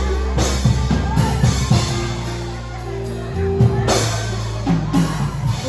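Live worship band music with drum kit, bass and held keyboard chords.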